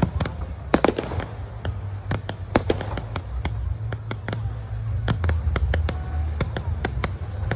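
Fireworks display: a dense, irregular run of sharp bangs and pops as several shells launch and burst, over a steady low rumble.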